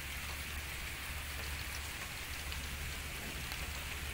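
Steady rain: a continuous hiss with scattered drop ticks, over a low steady rumble.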